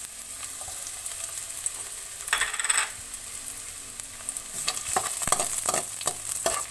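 Chopped onion and garlic sizzling in hot oil in a metal wok, with a brief louder burst about two and a half seconds in. From about two-thirds of the way through, a metal spoon scrapes and clicks against the wok as the aromatics are stirred.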